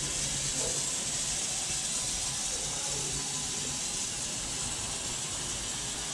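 Steady high hiss of steam escaping from a standing steam locomotive.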